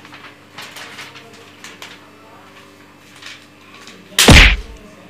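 Faint rustling of a paper sheet with small clicks, then one loud thump about four seconds in as a hand presses the sheet flat against a tiled wall.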